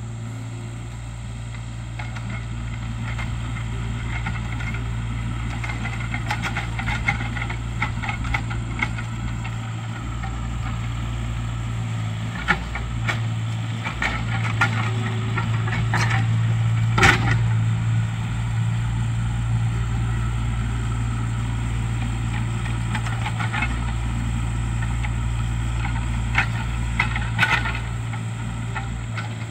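Kubota mini excavator's diesel engine running steadily while the machine digs dirt, with scattered knocks and clanks from the bucket and boom, the sharpest about halfway through.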